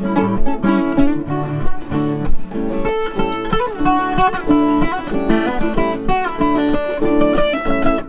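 Two Brazilian violas caipiras (ten-string, double-course folk guitars) playing an instrumental duet, with fast thumbpick-and-finger plucked melody lines and some slid notes, in a Panamanian-style tune.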